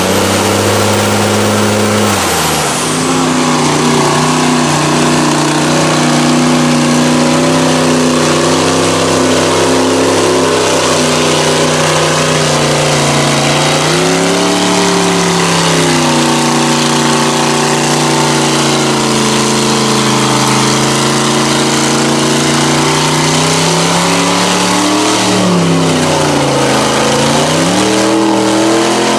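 Mega mud truck's engine running hard at high revs as the truck churns through a mud bog on huge tires. About two seconds in, one engine note drops away and another takes over; its pitch dips and climbs back up twice, about halfway through and again near the end.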